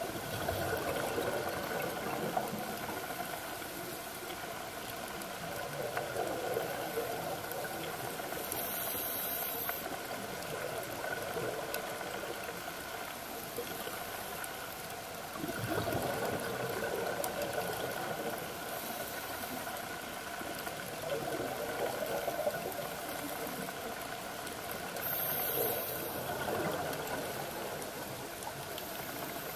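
Scuba diver's exhaled breath bubbling out of a regulator underwater, swelling in a burst of bubbles every several seconds over a steady underwater hiss.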